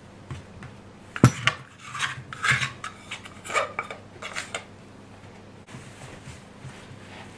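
A plastic dough scraper scrapes and clatters around a glass mixing bowl, folding shaggy bread dough until no dry flour is left, with one sharp knock against the bowl about a second in. The last couple of seconds hold only faint sounds of the dough being pushed and pulled on a wooden board.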